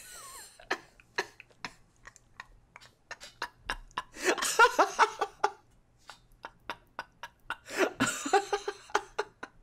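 People laughing in short breathy bursts and snorts, with louder stretches of laughter a few seconds in and again near the end.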